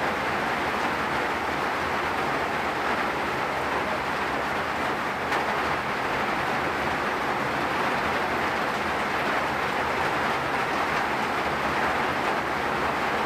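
Steady heavy rain falling, an even unbroken hiss with a single brief tick about five seconds in.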